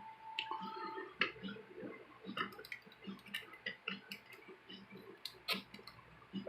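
Faint, scattered light clicks and taps of a hard plastic action figure being handled and posed.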